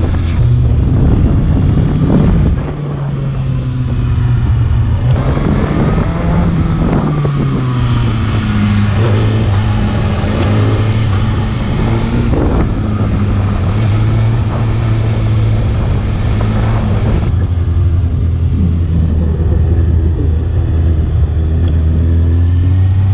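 Kawasaki ZX-6R's inline-four engine running hard on track, its pitch rising and falling several times with the throttle through the corners.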